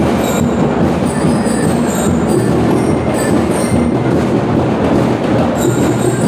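School drum and lyre corps playing: massed drums with bell lyres, a loud, dense, steady wall of sound with no breaks.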